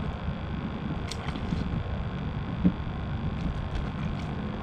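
Wind rumbling steadily on the microphone, with a few faint clicks and one short knock a little past halfway through.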